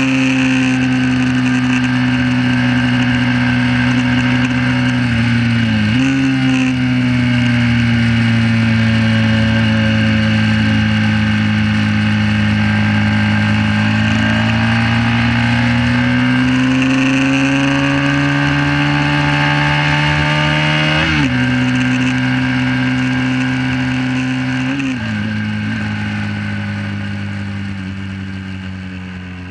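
1968 Honda CB350's air-cooled parallel-twin engine running hard under racing load, heard onboard. Its pitch sags slowly, then climbs again, broken by three quick gear changes. The sound fades out near the end.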